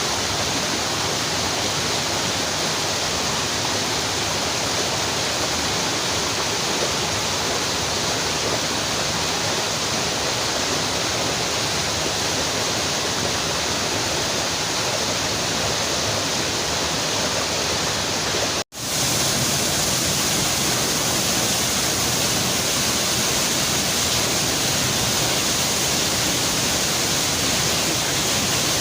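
Waterfall pouring into its plunge pool: a steady, dense rush of falling water from a strong, full flow. It cuts out briefly about two-thirds through and resumes slightly louder.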